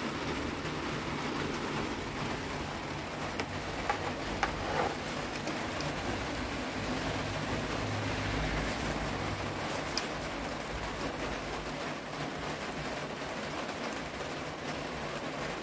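Steady rain falling, an even hiss, with a few faint clicks about four seconds in and again near ten seconds.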